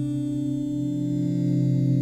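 Ambient background music of long, sustained ringing notes, with a new low note coming in about a third of the way through.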